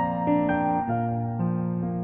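Keyboard playing a slow, gentle instrumental melody of a Mandarin pop ballad, with single melody notes entering every half second or so and ringing on over held low notes.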